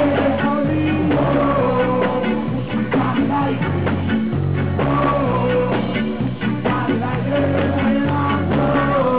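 Live band playing upbeat rock music: a stepping bass line, electric guitar, drums with steady hits, and a singing voice over the top.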